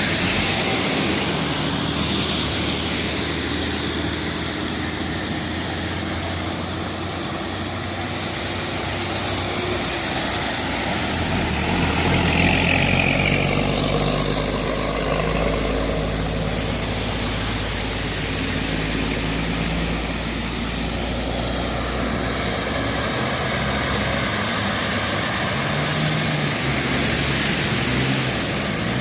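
Motor vehicle engine running, its low hum stepping up and down in pitch, under a steady hiss.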